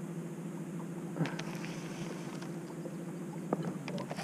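Steady low hum of an electric bow-mounted trolling motor, with a few light clicks from a baitcasting reel being handled about a second in and again near the end.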